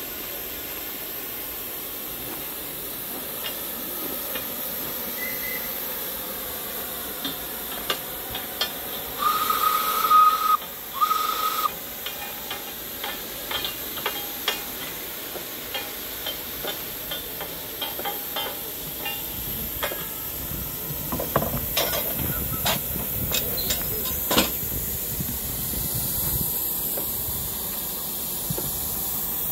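Replica early steam locomotive standing in steam, hissing steadily. About ten seconds in come two short whistle notes at one steady pitch, the loudest sounds here, and later a scattering of sharp metallic clanks and knocks.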